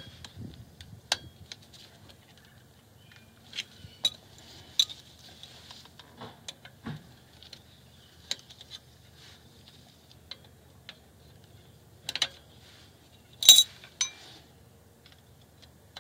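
Screwdriver working on the steel parts of a Toyota Corolla's rear drum brake, prying at the parking brake shoe's horseshoe clip: scattered metallic clicks and clinks with short scrapes, one sharper clink late on.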